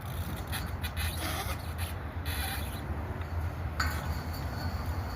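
Wind rumbling on the microphone, with scattered short clicks and scrapes.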